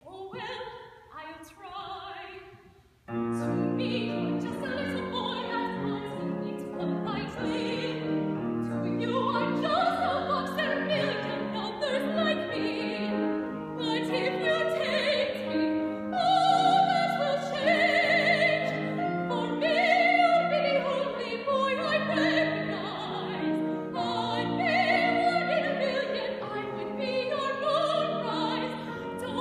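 Female operatic singing with piano accompaniment, from an opera scene. Softer phrases open the passage, then after a brief pause about three seconds in the piano and voice carry on steadily.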